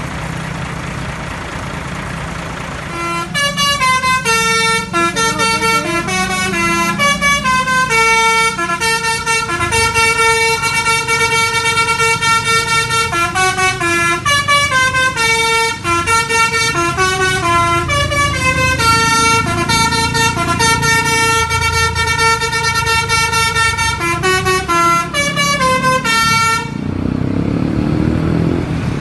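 Bus 'telolet basuri' multi-trumpet air horn playing a long melody of short notes stepping up and down in pitch, starting about three seconds in and stopping shortly before the end, over a bus engine running.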